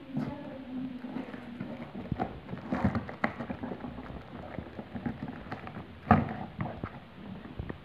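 Corrugated cardboard box being torn and pulled open by hand: crackling rustles of cardboard and packing tape, with a few sharp knocks. The loudest comes about six seconds in.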